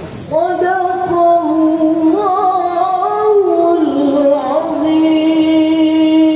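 A woman reciting the Quran in the melodic qiro'ah (tilawah) style. She sings one long, ornamented phrase that winds up and down in pitch and settles near the end into a long held note.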